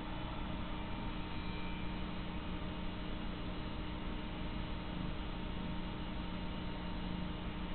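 Domestic cat purring, a steady low hum, while being stroked.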